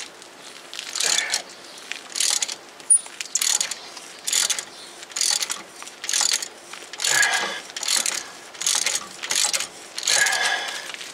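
Hand ratchet wrench clicking as it is swung back and forth in about eleven strokes, roughly one a second, backing out a rear wheel-bearing hub assembly's mounting bolt.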